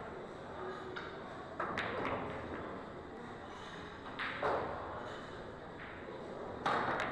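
A pool shot: a sharp click of the cue striking the cue ball and the clack of the cue ball hitting an object ball about one and a half seconds in, sinking it. Two more knocks follow, about four and a half and seven seconds in, while the cue ball rolls on.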